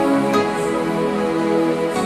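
Background music: an instrumental passage of a soft pop song, with sustained synth or keyboard notes and light percussion.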